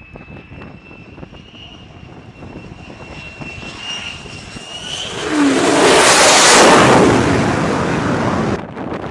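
An F-35C's single Pratt & Whitney F135 jet engine on a carrier landing. A high turbine whine grows louder and rises slightly in pitch as the jet comes in. After the touchdown a loud rush of jet noise peaks and then cuts off suddenly near the end.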